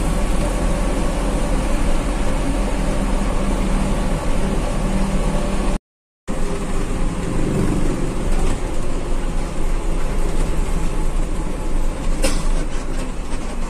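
Steady engine hum and road noise inside the cabin of a Mitsubishi-engined coach bus. The sound drops out completely for about half a second partway through, and a single sharp click comes near the end.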